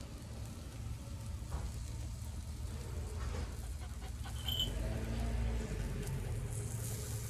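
Papillon dog panting rapidly over a steady low hum.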